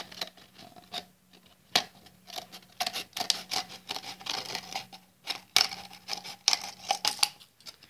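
Scissors cutting through a clear plastic PET bottle: a run of irregular, sharp snips and clicks as the blades work around the bottle's middle.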